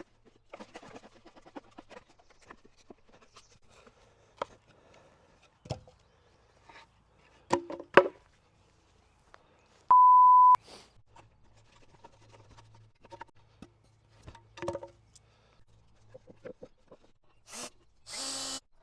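Scattered knocks and clicks of wooden boards and clamps being handled. About ten seconds in comes a half-second censor bleep, a loud steady beep. Near the end a cordless drill runs in short bursts.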